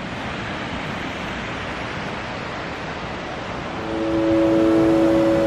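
A steady rushing noise, with sustained musical notes coming in about two-thirds of the way through.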